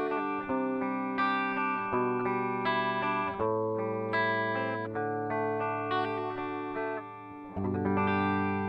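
Gibson SG Standard electric guitar played clean on its bridge pickup: picked chords and single-note phrases ring out one after another. There is a short lull about seven seconds in, then a fresh chord is struck and sustains.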